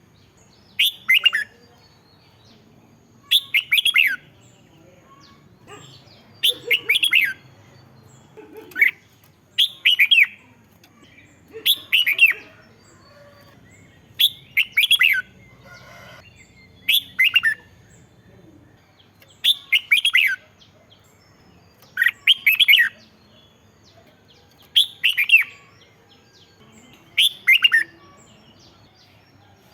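Red-whiskered bulbul singing short, bright phrases over and over, about one every two to three seconds. Each phrase is a quick run of falling notes.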